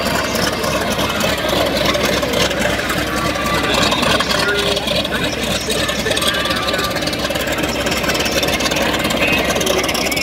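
Bell 47 helicopter running steadily on the ground, its engine and rotor turning ahead of lift-off, with people talking over it.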